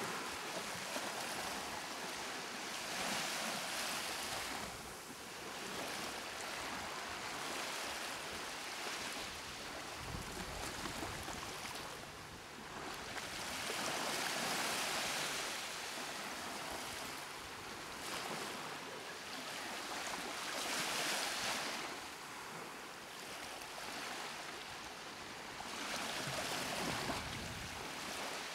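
Rushing sound like surf, swelling and ebbing about every six seconds as waves come in and draw back.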